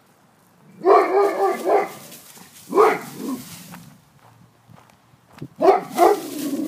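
Large dog barking in loud bursts: a long run of barks about a second in, a single bark near three seconds, and more near the end. The dog is agitated, barking at a neighbour who keeps provoking it.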